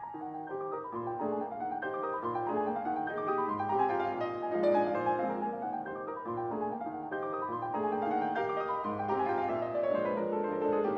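Background instrumental music led by piano, with notes moving steadily throughout.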